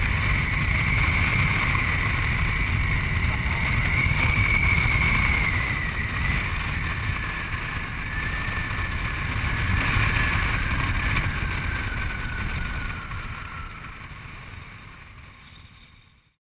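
BMW F800GS parallel-twin motorcycle riding along a road, heavy wind rushing over the bike-mounted camera microphone, with a high whine from the bike that drops in pitch in the second half. The sound fades out near the end.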